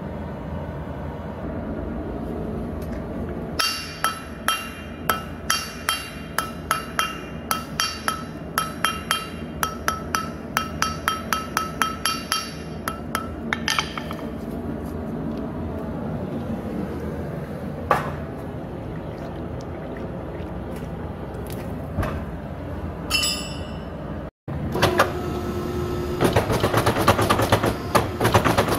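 Hand hammer striking a red-hot jackhammer chisel bit on a steel anvil to draw out its point: a long run of ringing metal-on-metal blows, about three to four a second and quickening, over a steady machine hum. Near the end a mechanical power hammer starts pounding the hot bit with rapid blows.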